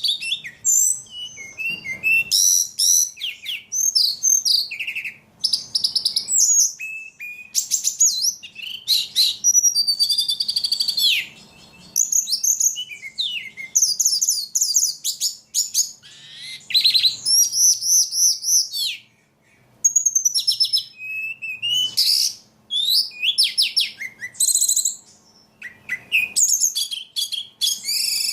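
Ledekan songbird singing almost nonstop, in quick, varied phrases of high chirps, trills and whistles. The notes rise and fall, with short gaps and one brief pause about two-thirds of the way through.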